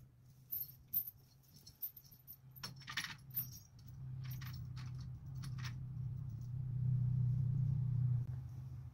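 Light metallic clinks and rattles, then a tractor engine running steadily. It gets louder for about a second and a half near the end, then eases back.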